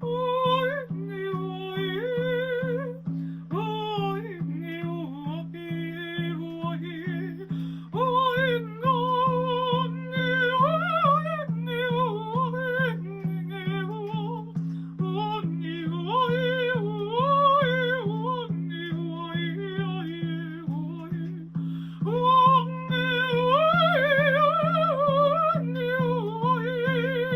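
A woman singing wordless, improvised vocal lines that slide and waver in pitch, over a low drone backing that pulses steadily.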